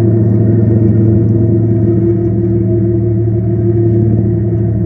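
BNSF diesel-electric freight locomotives passing, their engines giving a loud, steady low drone over the rumble of the train.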